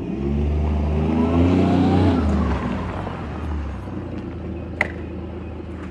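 Kawasaki side-by-side UTV engine driving in: the engine note rises as it pulls up, then drops as the machine slows and settles to a lower, quieter run. A single sharp click comes near the end.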